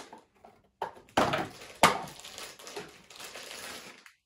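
Crinkling and crackling of a clear plastic bag being pulled from a cardboard box and handled, with two sharp, loud crackles at about one and two seconds in.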